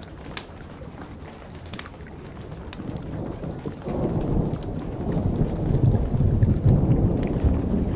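Steady rain with a few sharp campfire crackles. From about three seconds in, a low roll of thunder builds and is loudest near the end.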